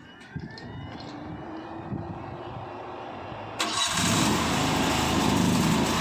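A 23 hp gasoline mini skid steer loader's engine being started: a rising whine of cranking for about three and a half seconds, then the engine catches with a sudden jump in loudness and keeps running.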